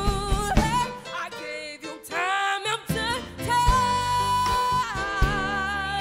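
A woman singing lead over a live band. The bass and drums drop out for about two seconds early on while her voice runs up in a quick melodic flourish, then the band comes back in and she holds a long, steady note.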